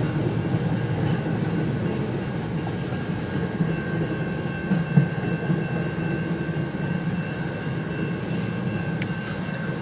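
CN freight train rolling past with a steady rumble of wheels on rail. A faint steady high whine joins about four seconds in, and there is a single knock near the middle.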